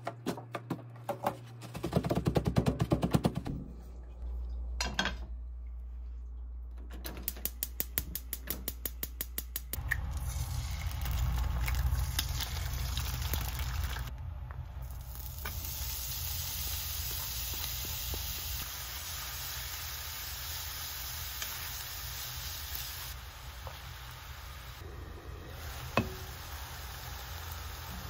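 Eggs and then minced meat with sliced green peppers and onion sizzling in a frying pan, a steady hiss from about ten seconds in. Before it comes a cluster of quick knocks, then a run of even ticks, about five a second.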